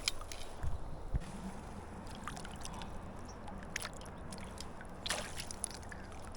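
Water sloshing and small splashes over a steady low river rush, with a louder splash about five seconds in.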